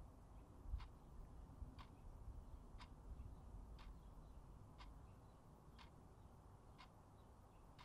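Clock ticking faintly and evenly, about once a second, over quiet room tone.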